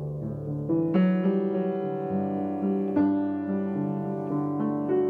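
Slow piano music with held chords, a new chord struck about a second in and again about three seconds in.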